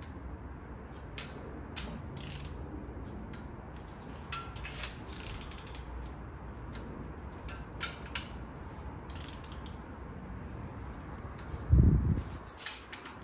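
Ratchet of a torque wrench clicking in short bursts as the M11 cylinder head bolts of an LY5 5.3L V8 are run to the first 22 ft-lb torque step. A single heavy thump near the end.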